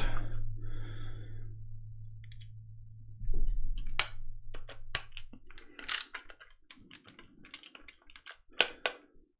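Small irregular clicks and scrapes of a hand screwdriver driving mounting screws into a hard drive's metal case, with the drive being handled.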